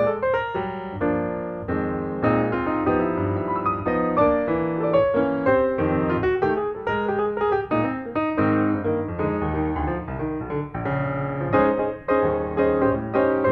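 Background music: a piano playing a lively melody of many quick notes over chords.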